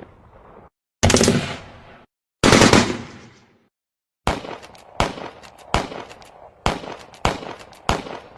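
Gunfire sound effect: two heavy shots with long fading echoes about a second and a half apart, then, from about four seconds in, a quicker string of shots, some in rapid clusters.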